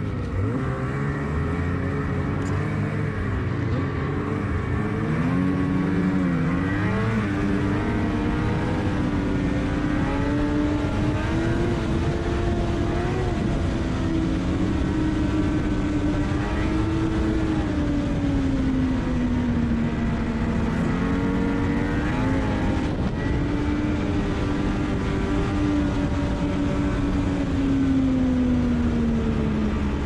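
Ski-Doo MXZ Blizzard snowmobile engine running under way with a steady rush of wind and track noise. Its pitch rises as the sled speeds up in the first third, holds, drops about two-thirds through, climbs briefly and falls again near the end as the sled slows.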